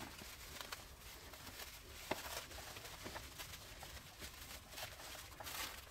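Faint, scattered crinkling and rustling of plastic food wrap being pressed and smoothed by hand around a plastic skeleton, with a few soft ticks.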